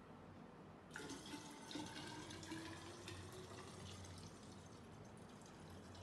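Liquid pouring from an upturned plastic bottle into a tall glass measuring cylinder: a faint steady splash and trickle that starts about a second in.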